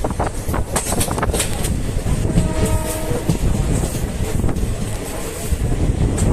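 Krishna Express passenger train running on the rails: a steady low rumble with a cluster of sharp clacks in the first second and a half, and a faint brief tone about halfway through.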